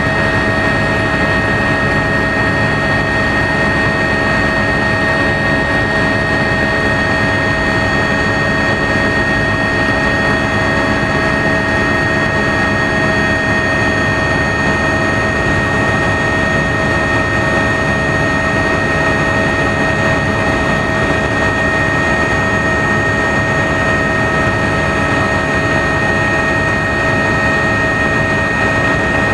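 Helicopter's turbine engine and rotors heard from inside the cabin in level flight: a steady, loud drone with several constant whining tones over it.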